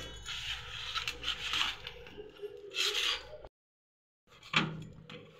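Hands mixing rice flour with warm water in a steel bowl: fingers rubbing and scraping through the crumbly, half-wet flour against the metal. The sound cuts out abruptly about three and a half seconds in, and a few sharper knocks of handling follow near the end.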